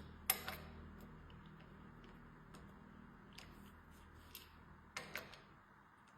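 A few sharp clicks and light ticks of small parts and hand tools being handled while the air fork is worked on. The loudest clicks come just after the start and again about five seconds in, over a faint low hum that fades out near the end.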